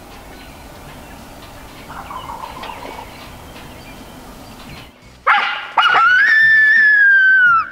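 Coyote howler locator call blown hard: a short yip about five seconds in, then one long howl that rises in pitch and slowly falls before cutting off. It is used to make roosted wild turkeys shock-gobble so they can be pinpointed.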